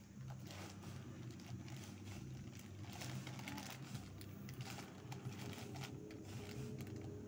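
Scattered light clicks and rustling from a plastic bag of dry cat food being handled and kittens eating the kibble off a hard floor, over a steady low hum.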